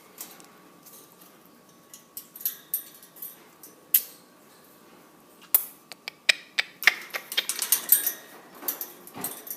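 African grey parrot making a string of sharp, irregular clicks and ticks, coming thicker and louder about seven to eight seconds in.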